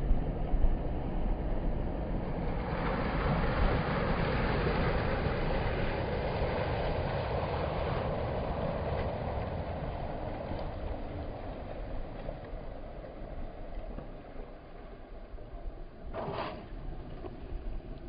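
Small waves breaking and washing over a rocky shore, with wind rumbling on the microphone. The wash of surf swells about three seconds in and slowly fades toward the end.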